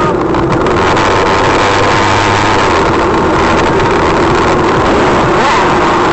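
Car engine and road noise running steadily while driving, with no impact heard.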